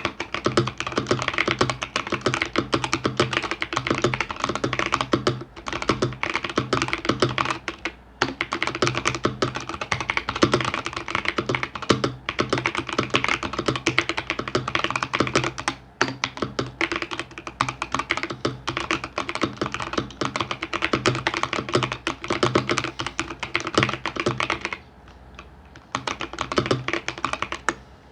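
Mechanical keyboard with Gazzew Boba U4T tactile switches on stock 68 g springs, typed on rapidly and continuously, a dense run of keystrokes broken by a few short pauses and a longer pause about 25 seconds in.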